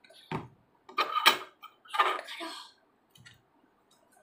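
A thin metal implement clinking and scraping against a small glass jar of baking soda while it is scooped out. There are a few short clinks and scrapes, the loudest about a second in, then a few faint ticks.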